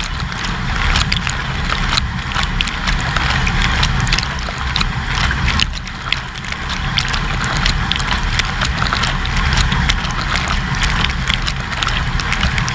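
An AEG dishwasher in its wash cycle, heard from inside the wash chamber: the pump motor gives a steady low rumble under water spraying and splashing, with a constant run of small ticks as drops strike the camera. The level dips briefly about halfway through.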